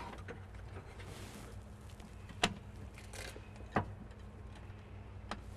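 Three short sharp clicks, spread a second or more apart, from handling a 1955–1959 Chevy headlight switch as its knob shaft is released and pulled out of the switch in the dash, over a faint steady hum.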